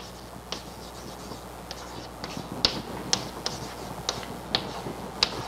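Chalk tapping and scratching on a blackboard as figures are written: a string of short, irregular clicks.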